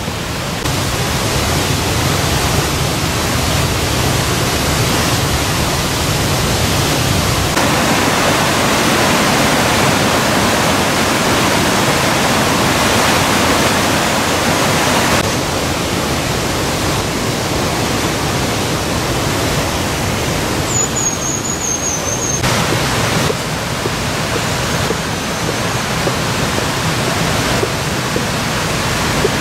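Rushing mountain river rapids: a steady, loud rush of white water that shifts in level and tone several times. A brief thin high whistle comes about two-thirds of the way in.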